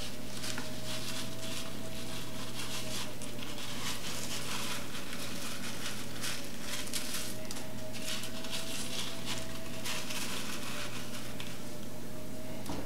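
Crushed cornflakes crackling and crunching as skewered chicken is rolled through them in a metal baking tray, with irregular crisp rustles over a steady background hum.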